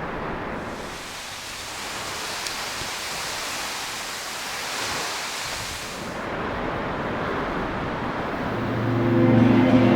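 Ocean surf breaking and washing, a steady rushing hiss that swells into a brighter, fuller wash for a few seconds in the middle. Music fades in near the end.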